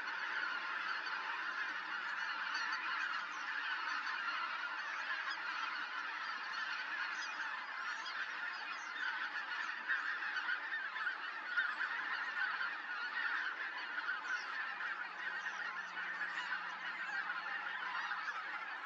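A large flock of birds calling continuously, many voices overlapping in a steady din with no pauses.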